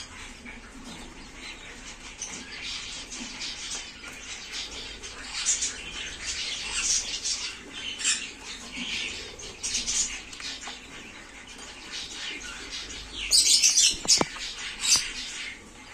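King quail (button quail) in a cage chirping: many short, high peeps scattered throughout, with a louder, busier burst near the end.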